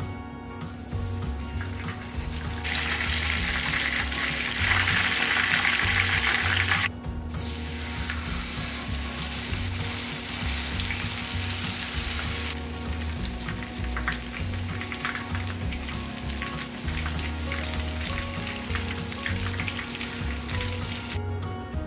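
Food frying in hot oil, a steady sizzle that is loudest from about three to seven seconds in, then drops suddenly and carries on more quietly.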